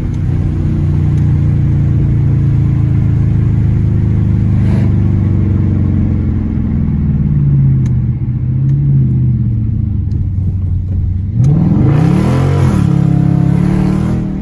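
Dodge Challenger R/T V8 running through a mid-muffler-deleted exhaust: a steady low engine drone while cruising, then about three-quarters of the way through a hard rev that rises in pitch and falls back.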